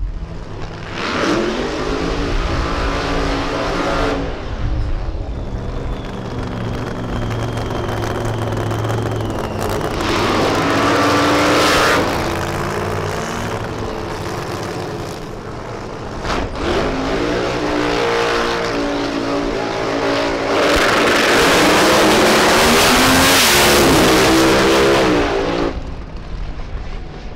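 Supercharged methanol-burning V8 of a Top Alcohol Funny Car revving in several short bursts with rising pitch, then a long, loudest full-throttle run near the end that cuts off abruptly.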